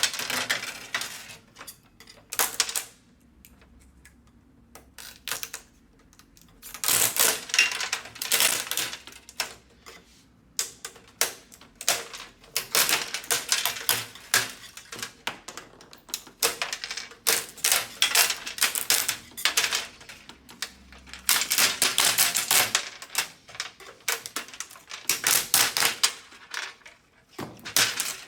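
Repeated bursts of rapid crackling and clicking, each lasting a second or two with short pauses between, as the TV's old LED backlight strips are pulled off and stripped out of the metal back panel.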